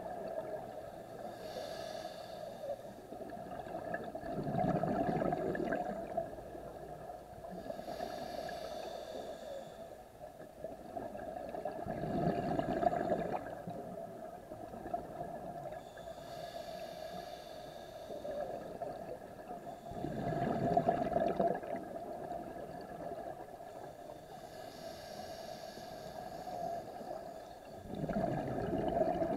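Scuba diver breathing through a regulator underwater: slow cycles about every eight seconds, a hissing inhale followed by a louder bubbling exhale, four exhales in all.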